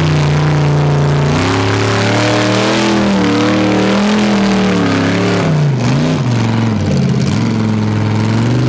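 Off-road hill-climb buggy's engine running hard at high revs as it claws up a steep sandy slope, the pitch wavering as the wheels scrabble for grip. About six seconds in, the revs drop and rise again twice in quick succession.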